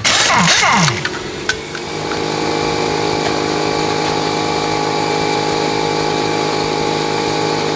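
Impact wrench buzzing for under a second as it spins a lug nut off, its pitch falling as it winds down. From about two seconds in, a steady hum of held tones takes over.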